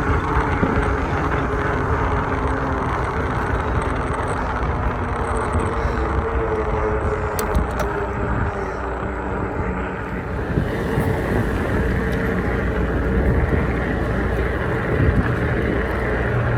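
Steady wind rumble on the microphone while cycling, mixed with the hum of passing city traffic.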